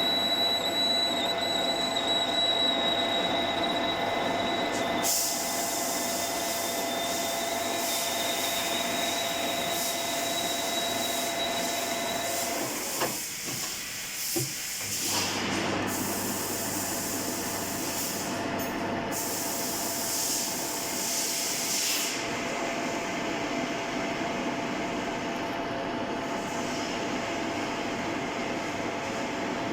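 JET GH-1440K geared-head metal lathe running, a steady mechanical whine with hiss. A steady tone drops out about twelve seconds in, with a short lull before the running noise picks up again.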